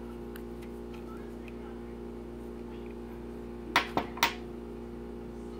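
Three quick light clicks close together, about four seconds in, as a fingertip taps and handles a clear plastic blister pack on a glass tabletop. A steady low electrical hum sits underneath.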